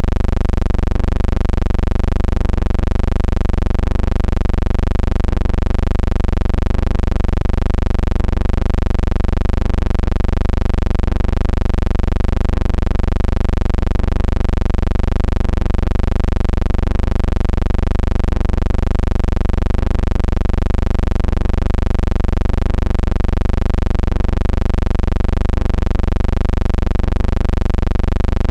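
A steady, loud low hum made of many even tones whose pitch wavers slightly, pulsing evenly a few times a second.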